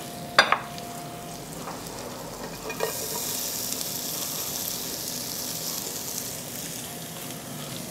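Julienned white onion going into hot butter in a pot, sizzling as it starts to caramelize; the sizzle swells about three seconds in as the onion drops in, after a short sharp click near the start.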